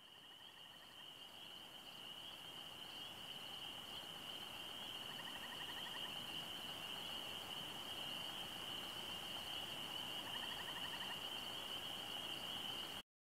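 Distant chorus of calling frogs at dusk, a steady high-pitched ringing. A short, fast-pulsed lower trill comes three times, about five seconds apart. The chorus fades in and cuts off suddenly near the end.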